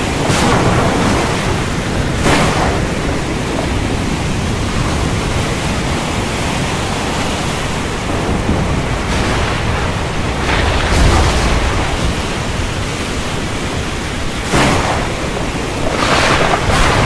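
Thunderstorm ambience: a steady rush of wind and rain with several louder surges along the way, and a deeper rumble about ten seconds in.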